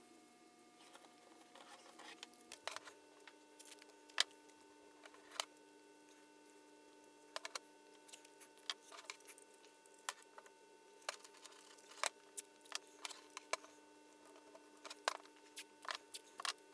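Irregular small clicks and taps of hands working on small metal parts, over a faint steady hum.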